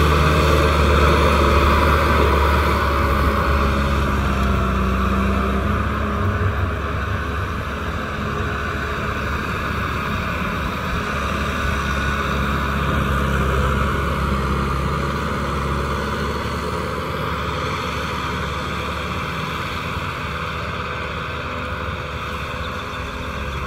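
Kubota M6040SU tractor's diesel engine running steadily under load while it drives a rear rotary tiller through wet soil. It fades slowly as the tractor moves away.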